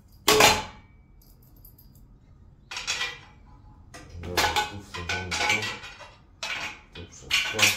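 Small steel bolts and fittings clinking and clattering as they are handled and fitted against a steel bracket plate, with a sharp knock just after the start and a run of short metallic knocks and rattles in the second half.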